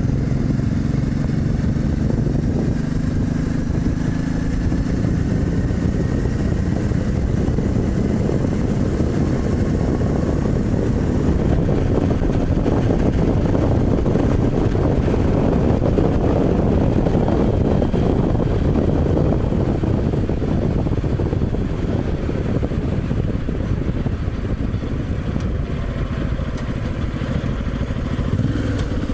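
Honda sidecar motorcycle running at speed on a motorway, its engine note rising slightly at first. Heavy wind and road rush builds on the microphone and covers most of the engine by mid-way.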